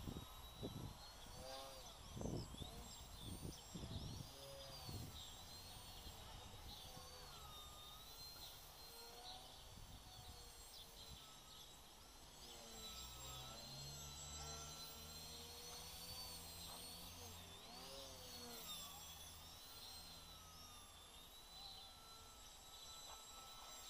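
FPV quadcopter motors whining, the pitch wavering up and down continually as the throttle changes. Wind buffets the microphone with low thumps in the first few seconds.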